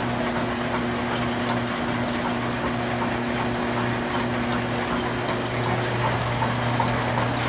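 Antique Star lathe and its overhead line shaft running steadily, belts and pulleys turning with a constant hum and whir; the lathe's change gears run quietly.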